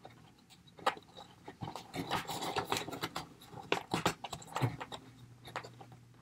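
Plastic action-figure accessories being handled: irregular small clicks, taps and scrapes as fingers fit gear onto the figure's backpack, busiest in the middle.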